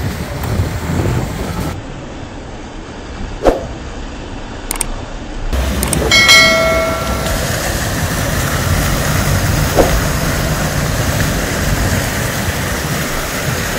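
Steady low rumble of strong wind on the microphone, with a sharp click about three and a half seconds in and a short tone with several pitches about six seconds in.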